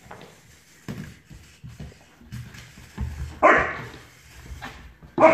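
Alaskan shepherd puppy (German shepherd–Alaskan Malamute mix) barking twice, loudly, once about three seconds in and again near the end, with soft thumps and scuffles of its paws and toys on the rug before the barks.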